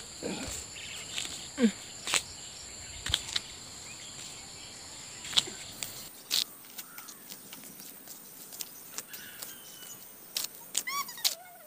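Rural outdoor ambience dominated by a steady high-pitched insect chorus, with scattered sharp clicks and taps throughout and a short run of bird chirps near the end.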